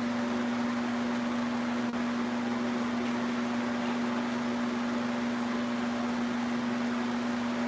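Steady machine hum: one constant low tone with an even hiss over it.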